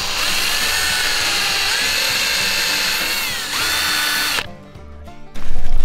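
Cordless power drill running steadily as its twist bit bores through a thick leather belt. The motor's pitch sags briefly under load about three and a half seconds in, recovers, then the drill stops about a second and a half before the end. A loud noise starts in the last half second.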